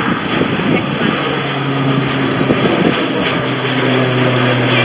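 Twin-engine turboprop airliner passing low overhead: a loud rush of engine and propeller noise, with a steady low propeller drone that comes in about a second in.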